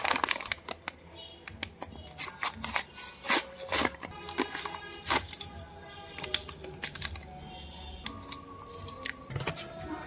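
Background music under many sharp clicks and light rattles from small items and packaging being handled while a blind box is opened.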